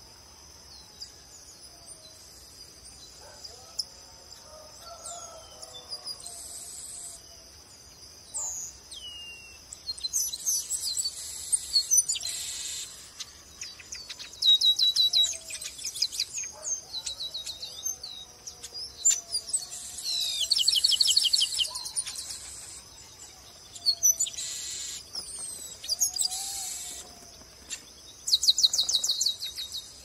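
Chestnut-capped blackbird singing: about six bursts of rapid, high trills, each a second or two long, growing more frequent after the first ten seconds. A steady high-pitched drone runs underneath, with softer, lower slurred whistles in between.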